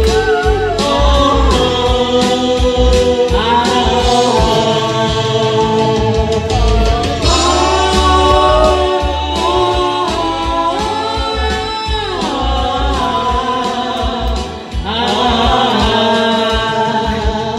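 Karaoke: men singing into handheld microphones, their amplified voices over a music backing track.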